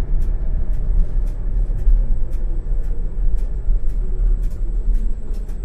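ČKD Tatra T6A5 tram running along the track, heard from the driver's cab: a steady low rumble with short sharp clicks every half second or so and a faint steady high whine.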